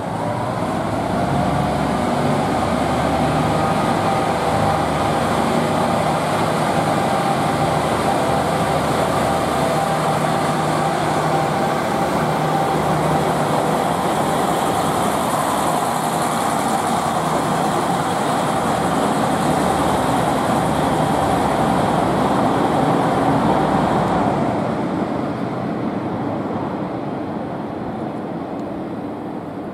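KiHa 40 series diesel railcar pulling out and running past close by, its diesel engine working under load with a rumble and a steady whining tone. It fades over the last few seconds as the railcar moves away.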